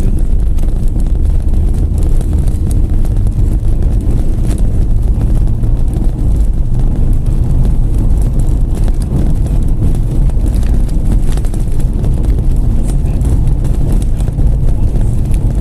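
Wind buffeting the microphone: a loud, steady, rough low rumble with no distinct booms.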